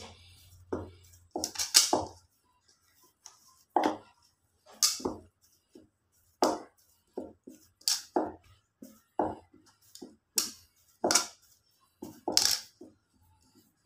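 Hands kneading a stiff biscuit dough of flour, ghee and egg in a bowl: short, irregular knocks and presses, one or two a second.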